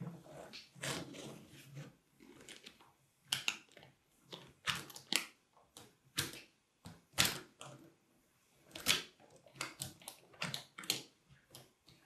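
Small magnetic balls clicking against each other as hands fit thin blue plastic pieces onto a magnet-ball model: irregular sharp clicks and short scraping rustles with brief pauses between them.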